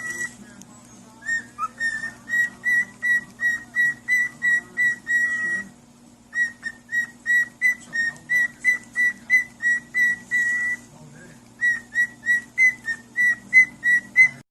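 Runs of short, high-pitched whistle-like peeps, about three to four a second, all at the same pitch, pausing briefly a few times, over a low steady hum.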